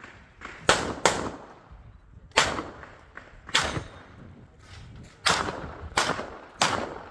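Pistol shots: seven sharp reports, each ringing out briefly. They come as a quick pair about a second in, then single shots spaced a second or more apart, and three in fairly quick succession near the end.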